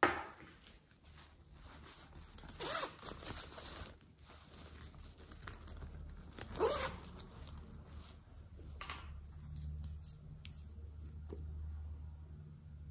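Hands handling plastic containers and toys: short scraping and rustling noises, with a sharp knock at the start and a faint low hum later on.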